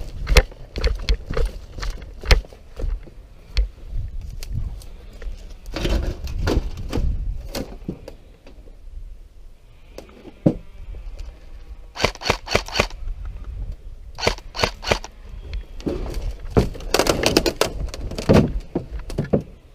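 Footsteps crunching through dry leaves and snapping twigs, in irregular bursts of crackles and cracks with pauses between.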